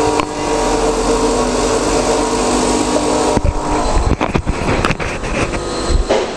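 Ascaso Steel espresso machine's vibratory pump running while it pushes water through the coffee puck to pull a double espresso. It starts as a steady hum and turns rougher and uneven about three and a half seconds in.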